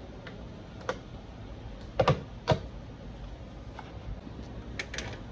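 A few sharp clicks and knocks at an office desk: a desk-phone handset being put down and a computer mouse being clicked. The loudest are a pair about two seconds in, with a quick run of small clicks near the end.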